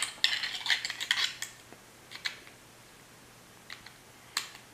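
Small plastic toy pieces clicking and clattering as they are handled and fitted together by hand. There is a busy run of clicks in the first second and a half, then a few single clicks.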